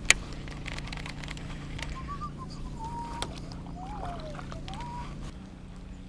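Quiet whistled notes: a few short calls near one pitch, one held level, one sliding down and one sliding up. A sharp click comes right at the start, with a few lighter clicks after it.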